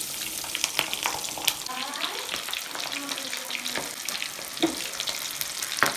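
Bread-crumbed chicken legs frying in hot oil, with a steady sizzle and scattered crackling pops. The loudest pop comes near the end.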